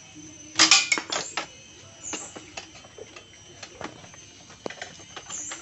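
Metal clicks and clinks of hand tools and loose small parts against a Yamaha Vega ZR motorcycle's frame and body panels during disassembly: a quick clatter of several clicks about half a second in, then scattered single ticks.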